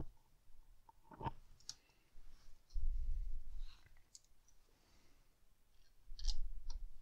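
Hand assembly noises as a screwdriver drives long fan screws through a plastic 120 mm fan frame into an AIO water-cooler radiator: a few small sharp clicks and two dull, low stretches of knocking and rubbing, one about three seconds in and one near the end.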